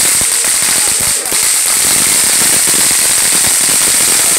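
Ground fountain firework spraying sparks: a steady loud hiss with dense crackling pops, dipping briefly about a second in.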